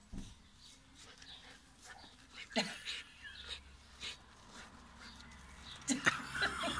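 Irish wolfhound puppy digging in loose soil: irregular scraping of paws in the dirt and the dog's breathing as it works its head down into the hole. The scrapes grow busier partway through and again near the end.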